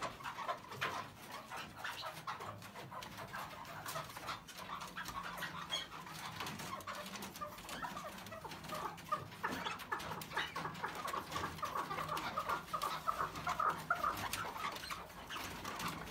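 Captive white (albino) chukar partridges clucking and calling, a fast run of short clucks that goes on all the time and grows busier in the last few seconds.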